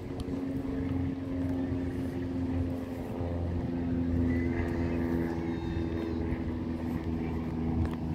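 An unseen engine droning steadily, its pitch drifting slowly.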